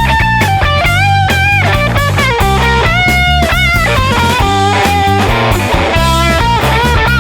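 Background rock music: an electric guitar plays a melody with bends and slides over bass and drums.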